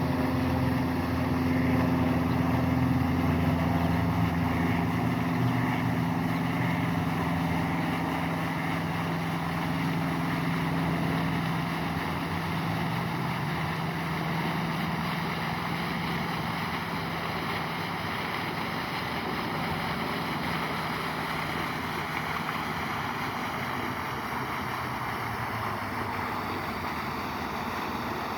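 A motor's steady hum that fades away over the first dozen seconds, over a continuous rushing noise.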